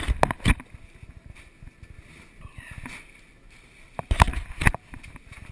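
Rod-and-reel handling noise from an angler fighting a hooked fish: two short clusters of sharp knocks and thumps, one at the start and one about four seconds in, over a faint wash of sea and wind.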